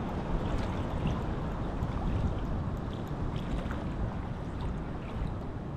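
Steady wind rumbling on the microphone, low and even, with a few faint light ticks of water.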